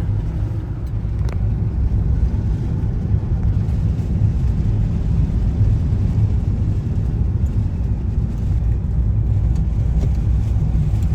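Steady low rumble of a vehicle's engine and tyres on the road, heard from inside the cabin while driving, with one faint click about a second in.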